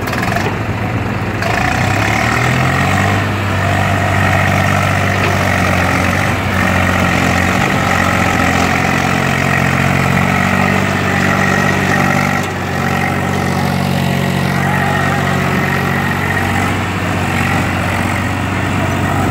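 Swaraj 735 XT tractor's three-cylinder diesel engine running steadily under heavy load as it pulls a trolley full of soil up out of a pit. The revs rise slightly about two seconds in and dip briefly just past halfway.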